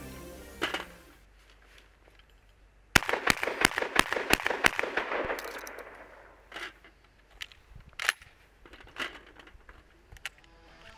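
Panzer Arms M4 12-gauge semi-automatic shotgun fired six times in rapid succession, in about two seconds, cycling without a stoppage. This is followed by scattered clicks as shells are pushed into its tube magazine.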